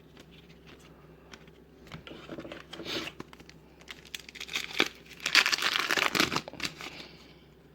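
Foil wrapper of a trading card pack crinkling and tearing open, with a short bout around two seconds in and a louder, denser stretch from about five to six and a half seconds in.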